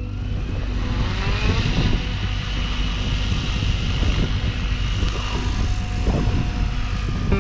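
Kraken 580 electric RC helicopter running, its motor and gear whine rising in pitch over the first couple of seconds and then holding steady over the rotor noise, with gusty low rumble throughout.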